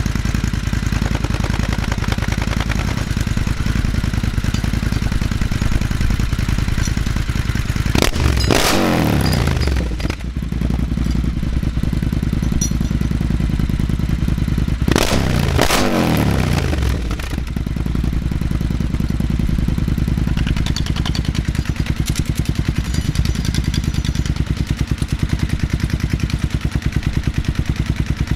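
Triumph Thruxton 1200's parallel-twin engine idling through a TEC Dueller 2-2 big-bore decat exhaust, first with the loudest baffles fitted and then with the baffles removed. The throttle is blipped twice, about eight and fifteen seconds in, each rev rising sharply and falling back to idle.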